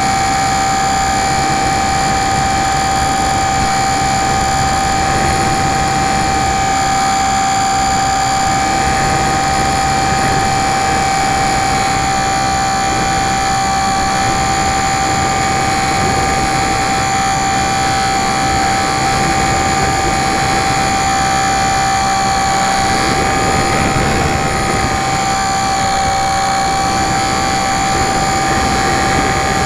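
Electric motor and propeller of a HobbyZone Super Cub LP radio-controlled model plane running at a steady cruise, picked up by a camera on board the plane, with a steady whine over a rush of wind. The pitch shifts slightly about three quarters of the way through.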